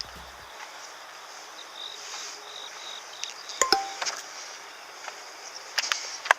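Steady, high outdoor hiss with a faint insect-like whine, broken by a few sharp clicks and knocks about halfway through and again near the end.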